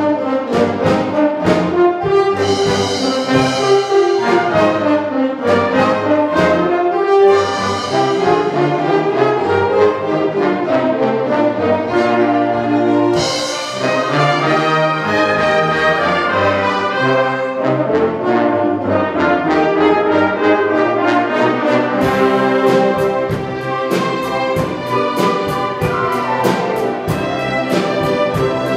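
An orchestra playing live, the brass section prominent over strings and woodwinds. About three quarters of the way through, a quick, even percussion beat joins in.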